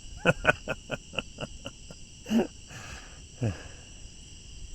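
Night chorus of crickets: a steady, high, continuous trill. Over it, shortly after the start, a quick run of about ten short sharp sounds that fade out within a second and a half, then two brief voice-like sounds.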